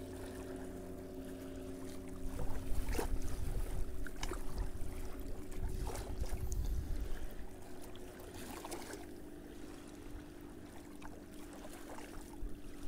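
Wind rumbling on the microphone, louder in gusts a few seconds in, over a steady faint hum, with a few sharp clicks from handling.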